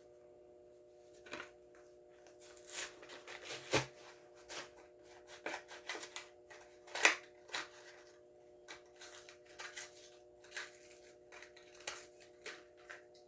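Hands handling die-cast toy cars and their plastic-and-cardboard blister packaging: irregular clicks, taps and crinkles, with a sharper click about seven seconds in, over a faint steady hum.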